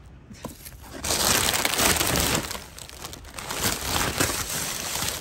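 Crunching and rustling from rummaging in a snowy dumpster full of cardboard boxes and plastic bags. It is loudest from about a second in to two and a half seconds, then goes on more lightly.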